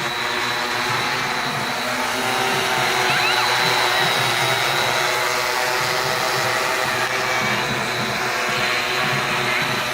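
Drone's electric motors and propellers running steadily, a constant whine made of many even tones.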